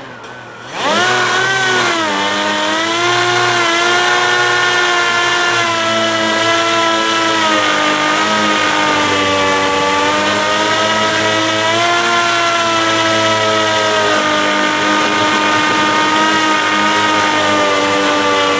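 Airboat engine and propeller revving up sharply about a second in, then running steadily at high power with slight rises and falls in pitch.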